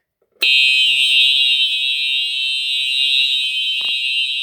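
Fire alarm sounder set off from a manual pull station, starting abruptly about half a second in and then sounding one loud, steady, high-pitched continuous tone.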